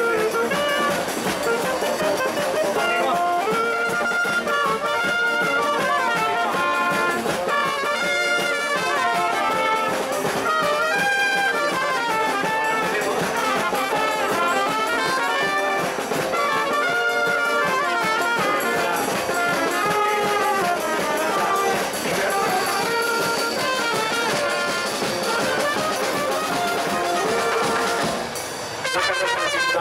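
Spanish charanga street brass band playing a lively tune, trumpets and trombones carrying the melody, with a brief break near the end.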